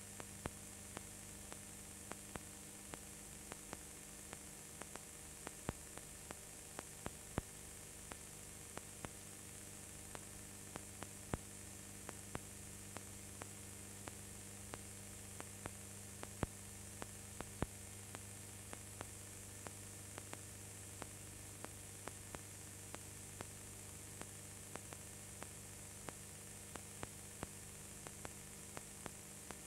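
Steady mains hum and hiss with scattered sharp clicks, one or two a second: the background noise of a film or tape transfer, with no live sound from the race.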